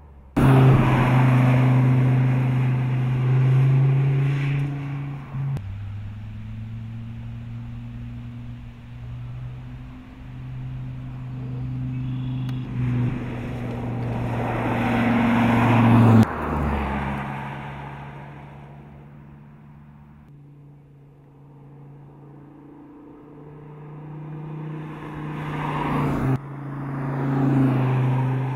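Dodge SRT Viper's V10 engine running at speed as the car drives past, its steady note swelling and fading several times, with abrupt breaks in the sound about five, sixteen and twenty-six seconds in.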